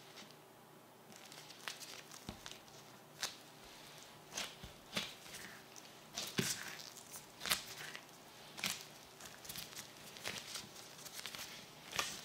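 Bare dough being kneaded by hands in thin plastic gloves on a silicone pastry mat: irregular soft pats, presses and sticky clicks, a few every second, starting about a second in.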